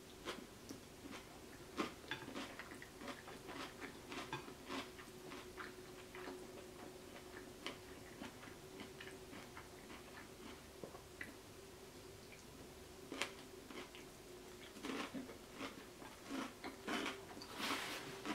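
Close-mic chewing of creamy bowtie pasta salad: soft wet mouth sounds with many small clicks and smacks, over a faint steady hum. Near the end come louder rustling and clicks as a paper napkin is picked up.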